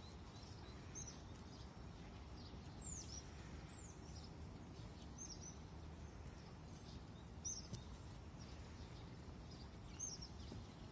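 Faint small-bird chirps: short, high, falling notes, about one a second and sometimes in pairs, over a low steady background hiss.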